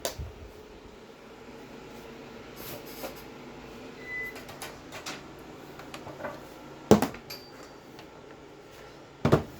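A few knocks and clacks from equipment being handled: one sharp knock about seven seconds in and a short cluster of clacks near the end, over a faint steady electrical hum.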